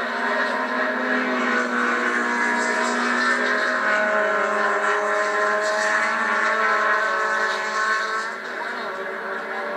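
Small-displacement production race cars' engines running hard through a corner, several engine notes rising and falling over one another, dipping briefly near the end. The sound is thin, with no bass, as played back through a television's speaker.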